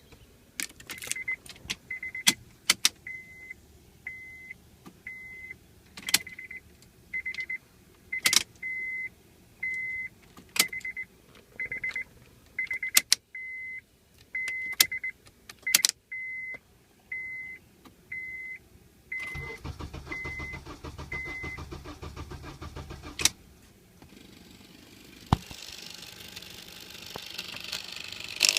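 Car warning chime beeping about once a second for some twenty seconds, mixed with sharp clicks from the key and ignition. Near the end comes a low mechanical whirr lasting about four seconds, which stops with a click, on a 2003 Honda Accord that won't start.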